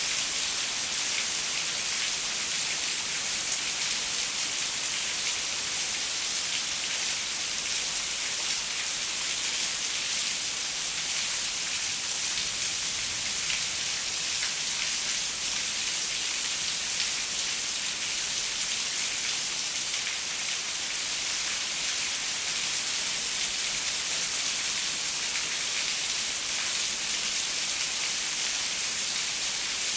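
Steady rain pattering on a window, an even hiss with many fine drop ticks and no thunder.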